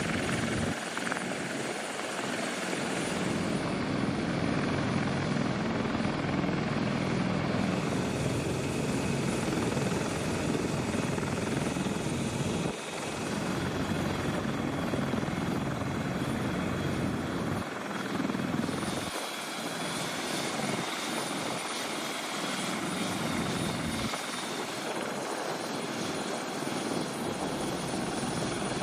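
Helicopters running on the ground: the steady rumble and whine of turbine engines and turning rotors from a CH-53 heavy-lift helicopter and an MQ-8C Fire Scout drone helicopter. The sound changes abruptly a few times, about a third of the way in and again near two-thirds.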